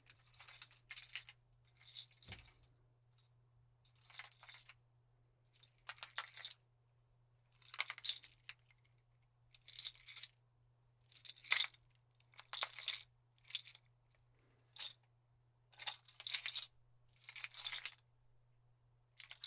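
A bunch of keys jingling in the hand in short shakes, about a dozen bursts one to two seconds apart, with quiet gaps between them.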